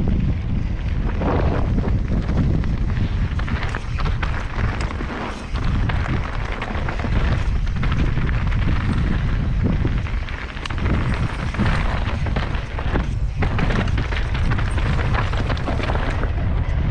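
Wind buffeting a helmet-mounted GoPro microphone on a mountain bike descending a dirt singletrack: a steady, heavy rumble. Tyre noise on the dirt and short knocks and rattles from the bike over the rough trail run under it.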